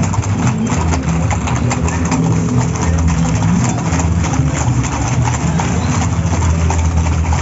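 Many horses' hooves clip-clopping on an asphalt street, a dense, rapid clatter of overlapping hoofbeats, over a steady low hum.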